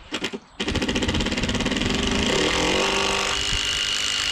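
A motor starts with a few short bursts, then runs continuously with a rapid even rattle. Its pitch rises for a couple of seconds, then settles to a steady run with a high whine.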